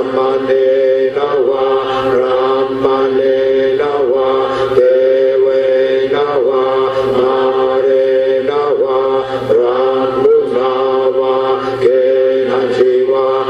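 Buddhist chanting in Pali: voices reciting on a nearly steady, held pitch in phrases a second or two long.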